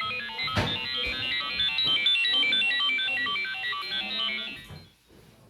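iPhone timer alert tone playing: a quick, repeating melodic run of short, bright electronic notes that stops about five seconds in. A single knock sounds about half a second in.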